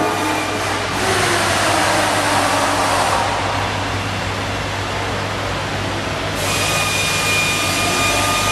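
Diesel generator set running steadily: a constant low hum under machine noise, with a thin high whine that fades out about a second in and returns near the end.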